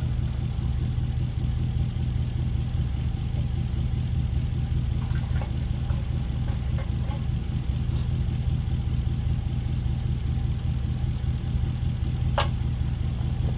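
Small engine of an old Sears ST12 garden tractor running steadily at idle. A single sharp click near the end.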